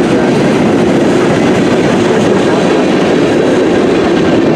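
Loaded freight cars of a long mixed-freight train rolling past close by: a loud, steady rumble of steel wheels on the rails.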